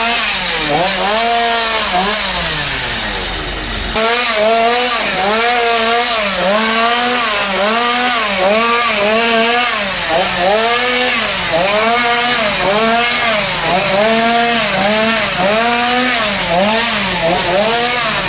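Two-stroke chainsaw cutting tree branches during pruning, its engine pitch rising and falling in repeated arches about once a second as it works through the wood.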